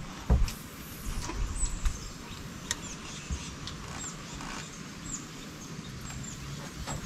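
A small bird giving brief, high, downward-slurred chirps every second or so, faint over a low rumble. A thump about a third of a second in is the loudest sound, with a few lighter knocks after it.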